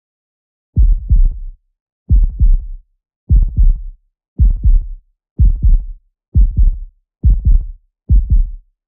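Heartbeat sound effect: eight low double thumps (lub-dub), about one a second, quickening slightly, starting just under a second in.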